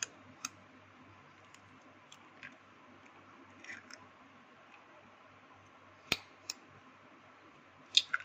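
Eggs being cracked against the rim of a bowl: a few sharp taps of shell on the rim, with a pair about six seconds in and the loudest near the end, and softer crackles of breaking shell in between.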